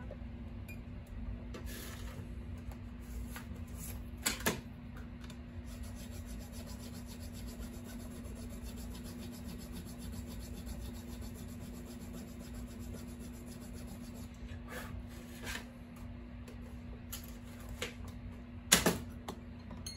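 Hands working on an electric guitar at the headstock: light rubbing and scattered small clicks, with a couple of sharper clicks about four seconds in and a sharp knock near the end, over a steady low hum.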